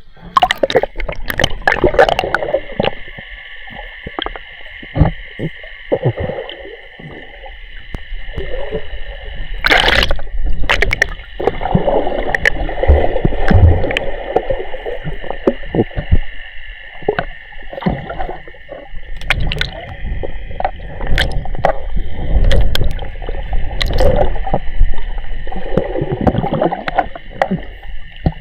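River water sloshing and gurgling close to the microphone, with irregular splashes, as a swimmer moves through it.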